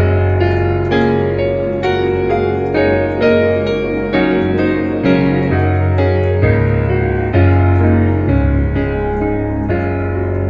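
Slow, gentle piano music: chords change about once a second over held low bass notes.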